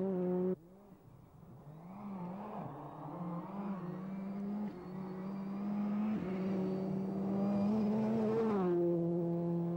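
1999 Ford Focus WRC rally car's turbocharged four-cylinder engine at high revs, growing louder as it approaches, its pitch rising and dipping with gear changes and lifts, with a faint high whine climbing alongside. Near the end it passes close and the engine note drops sharply.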